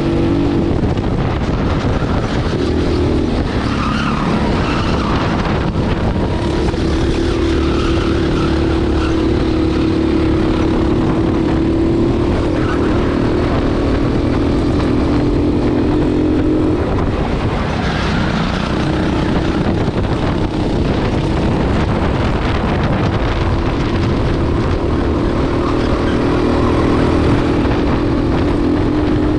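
Racing kart engine running hard, heard from on board the kart; its pitch drops several times as the driver lifts off for corners and climbs again as he accelerates out.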